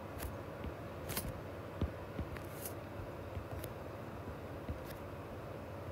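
Stylus tip tapping and ticking on a tablet's glass screen while handwriting digits, about five sharp ticks roughly a second apart, over a steady background hiss.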